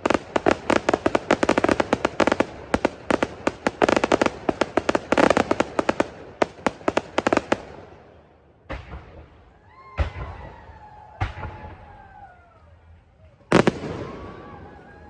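Fireworks going off: a rapid crackling volley of bangs for the first seven seconds or so, then a handful of single booms spaced a second or more apart.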